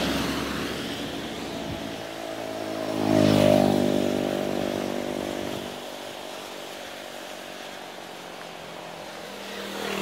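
Road traffic passing close by: a car going past at the start fades away, then another vehicle's engine and tyres swell and pass about three to four seconds in, the loudest moment, and a further vehicle starts approaching near the end.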